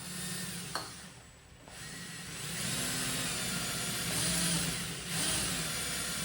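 Electric drill drilling out broken-off bolts, its motor speed rising and falling as the trigger is worked. It eases off about a second in, then runs again steadily.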